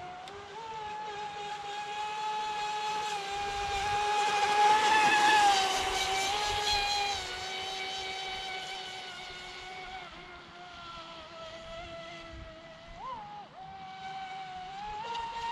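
Pro Boat Impulse 32 RC boat's brushless electric motor whining steadily at speed. It gets loudest about five seconds in, with a rushing hiss, then eases off. A short upward jump in pitch comes near the end.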